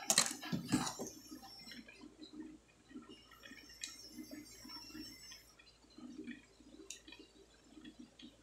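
Handling noise as a circuit board and its black plastic housing are picked up and turned over in the hands: a loud clatter in the first second, then faint scraping and two sharp clicks later on.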